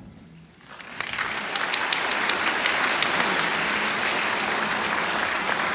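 Audience applause, a steady patter of many hands clapping, breaking out about a second in as the recital music ends.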